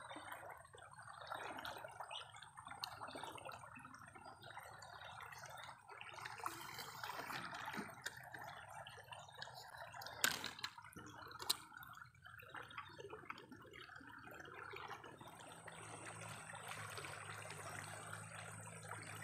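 Muddy river current rushing and trickling past the bank as a steady wash. Two sharp clicks come about ten and eleven and a half seconds in, and a faint low hum joins near the end.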